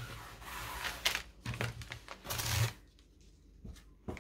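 Fabric rustling and sliding as a sari silk ribbon tie is pulled and unwound from a cloth-covered journal, in a few bursts over the first two and a half seconds, then a quieter stretch with a single light knock near the end.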